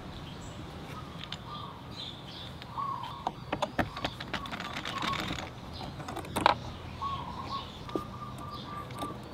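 A cluster of small metallic clicks and scrapes from a screwdriver working the negative terminal screw of a scooter battery, with one sharper click about six and a half seconds in. Birds chirp in short repeated notes in the background.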